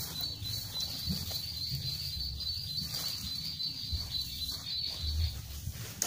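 An insect trilling steadily at a high pitch, stopping about five seconds in, with scattered low thumps underneath.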